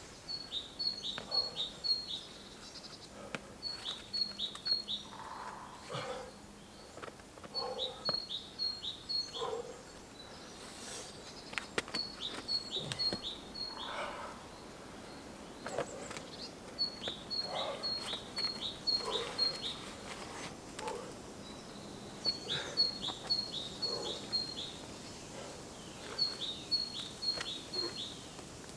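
A songbird singing in the forest: a phrase of four to six quick, identical high notes, each dipping in pitch, repeated every few seconds. Faint scuffs and taps sound beneath it.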